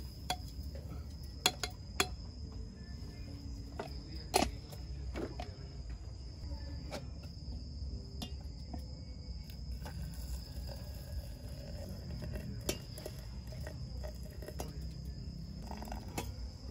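Crickets chirping in a steady high trill, with a few sharp clicks and knocks scattered through, the loudest about four and a half seconds in.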